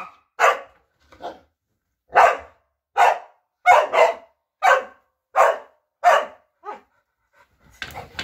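Lapphund barking in a steady string of about ten single barks, roughly one every 0.7 seconds, with short silences between them.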